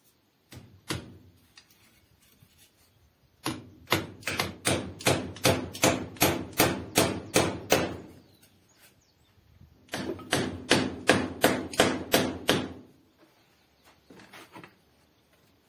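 Hammer blows fixing a small wooden bracket onto a wooden post: two taps, then a steady run of about sixteen strikes at three or four a second. After a pause comes another run of about a dozen, and a few light taps near the end.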